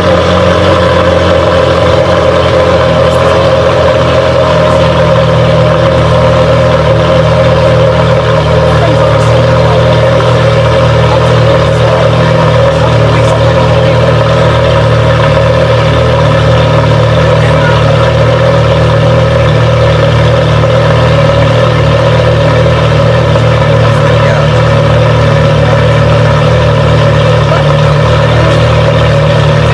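Gemballa Mirage GT's V10 engine idling steadily, with no revs.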